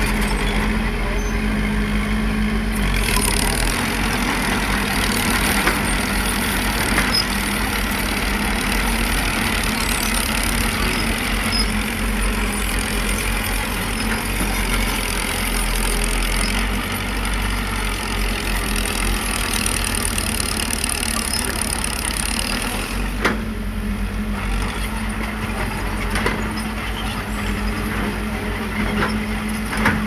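Small crawler bulldozer's diesel engine running steadily while it pushes dirt, with a few short sharp clanks.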